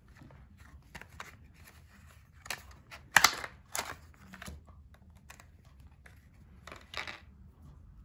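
Clear plastic blister packaging and its cardboard backing being pulled apart and handled: a run of crisp crackles and clicks, loudest about three seconds in, with another burst near the end.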